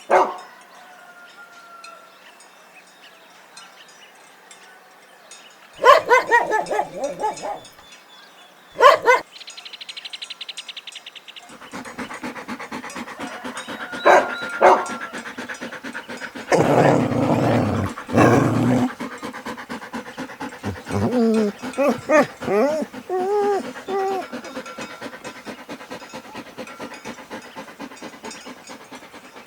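Dog barking several times, with stretches of whining in wavering pitches and some noisier breathing sounds, over faint background music.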